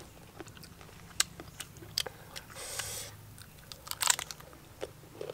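Crisp bites and crunchy chewing of raw green mango slices, a scattering of sharp crunches with the loudest cluster about four seconds in.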